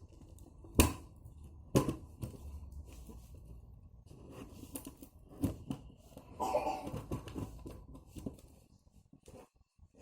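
Graphics card box and packaging being handled during unboxing: two sharp knocks about a second apart near the start, then tapping and rustling.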